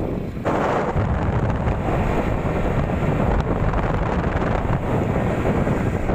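Wind buffeting the microphone over the engine and road noise of a motorbike riding at speed, a steady rushing roar that jumps louder about half a second in.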